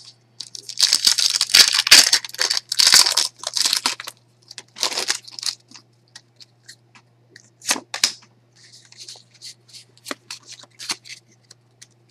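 Foil wrapper of a Pokémon TCG Boundaries Crossed booster pack being torn open and crinkled, in a run of rasping bursts over the first few seconds, then scattered crinkles and small clicks as the cards are handled.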